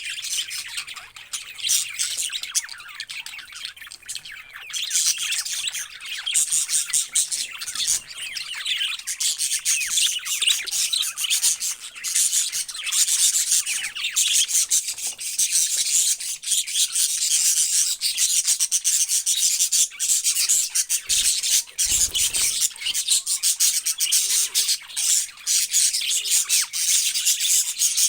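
Parrots chattering continuously, a dense, high-pitched scratchy twittering full of rapid clicks and squawks, which grows busier about five seconds in.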